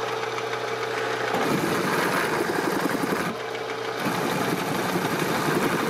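Drill press motor humming steadily while an end mill cuts into a steel block, with a fast rough chatter of metal cutting in two spells: from about a second and a half in, and again from about four seconds in, with a short pause between.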